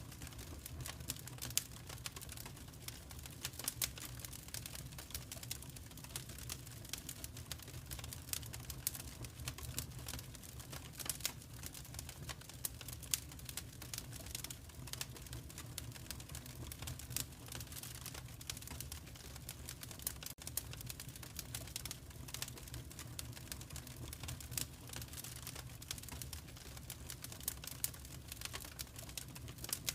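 Wood fire crackling: many small irregular pops and snaps over a steady low rumble.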